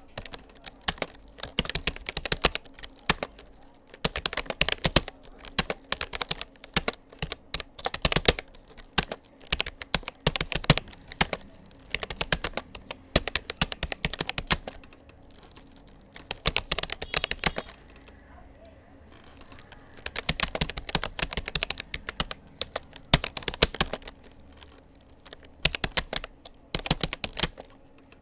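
Rapoo computer keyboard being typed on at a steady touch-typing pace: quick runs of key clicks broken by short pauses, with one longer pause past the middle.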